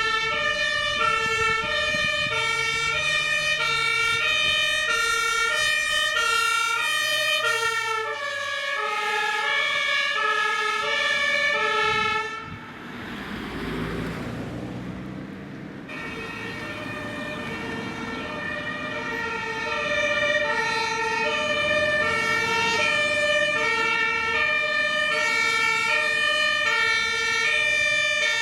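German fire brigade two-tone sirens (Martinshorn) sounding as emergency vehicles drive past: first the command car's siren, then, after a few seconds of rushing vehicle noise without the tones, the fire engines' two-tone sirens, two of them overlapping near the end.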